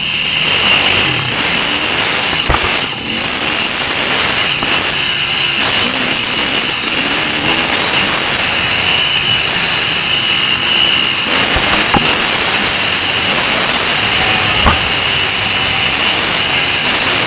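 Dirt bike engine running and revving up and down, picked up by a helmet camera under a steady rush of wind noise, with a few sharp knocks as the bike bounces over the track.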